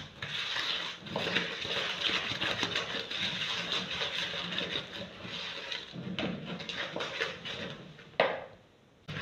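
Wooden spoon beating butter and sugar by hand in a plastic mixing bowl: a steady run of quick scraping strokes, creaming the mixture. A single knock about eight seconds in, then it goes briefly quiet.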